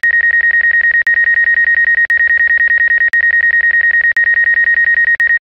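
Rapid electronic warning beeps from the drone's flight-control app: one high, unchanging pitch pulsed about ten times a second, with a short break about once a second, stopping abruptly near the end.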